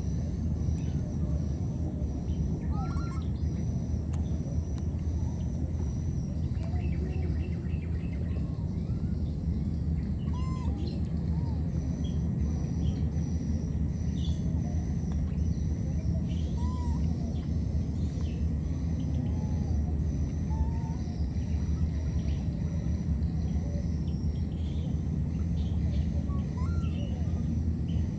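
A steady low rumble of outdoor background noise, with scattered bird chirps and short calls over it, including a quick rattling trill about seven seconds in.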